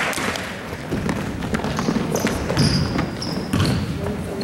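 Basketball game play on a gym court: the ball bouncing in repeated thuds, with several short high sneaker squeaks on the floor about two to three seconds in, over a murmur of the crowd.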